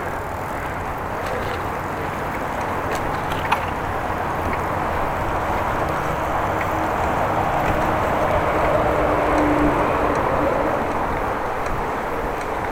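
Bicycle being ridden: a steady rushing of tyres and moving air, with a couple of sharp ticks a few seconds in. It grows a little louder past the middle.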